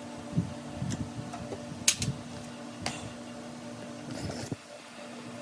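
Scattered clicks, clinks and knocks of hand tools and small metal parts being handled while bolts are taken off a small lawnmower engine's carburetor, over a steady low hum.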